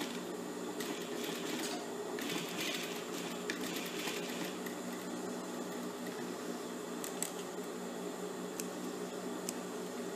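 Industrial single-needle lockstitch sewing machine stitching short bartacks in a few brief runs, most of them in the first half, over a steady motor hum.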